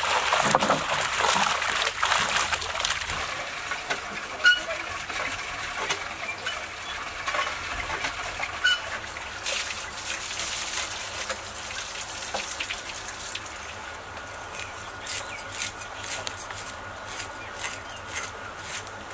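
Pond water splashing as a net full of fish is hauled in, then short, repeated scrapes of a knife scaling a freshly caught fish.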